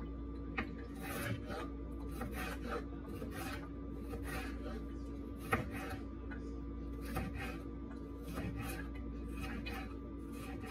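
Small knife cutting a green bell pepper on a wooden cutting board: irregular crisp cuts and light taps of the blade on the board, with one sharper knock about five and a half seconds in. A steady hum runs underneath.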